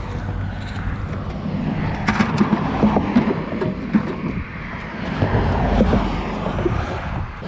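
Highway traffic going by: a steady rumble of engines and tyres, with a vehicle swelling louder about five to six seconds in.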